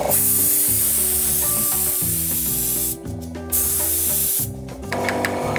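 Compressed-air spray gun spraying coloured cocoa butter onto a chocolate mould: a hiss of about three seconds, a short break, then a second burst of about a second.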